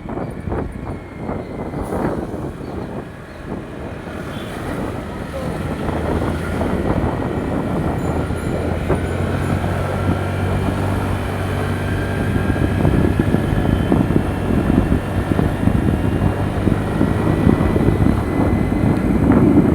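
Motor scooter riding along a road: engine running under wind and tyre noise, growing louder, with a steady engine hum from about eight seconds in.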